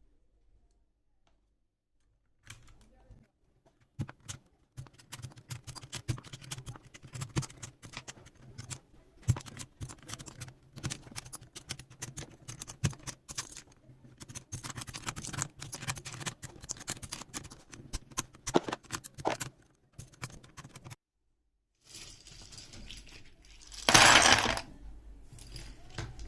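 Irregular small clicks and clinks of hard plastic keyboard parts being handled, as a 60% mechanical keyboard is taken apart, with a louder rustling scrape about two seconds before the end.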